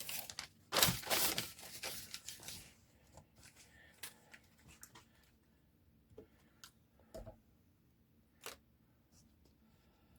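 Newspaper being torn into strips: a run of loud rips in the first couple of seconds, then scattered small taps and rustles of handling.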